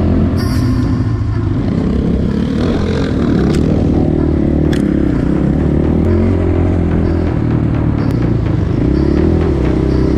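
GR2 enduro motorcycle engine running under way, its revs rising and falling, with scattered clatter and clicks.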